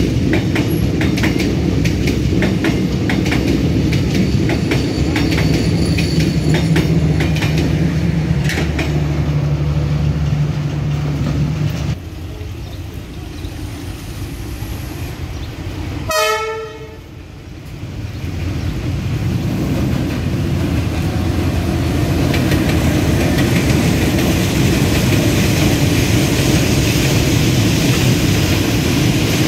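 A train passing close by: its wheels clack over the rail joints under a steady low engine drone. The sound drops abruptly about twelve seconds in, a brief sharp tone sounds near sixteen seconds, and a steady rumble then builds again.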